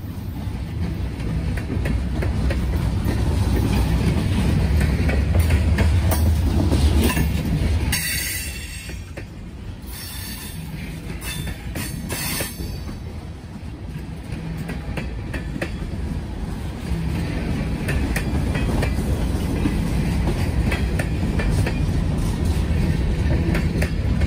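Freight train's tank cars and covered hoppers rolling past, a steady low rumble of steel wheels on rail, loudest about five to eight seconds in. Brief high-pitched wheel squeals come in between about eight and thirteen seconds in.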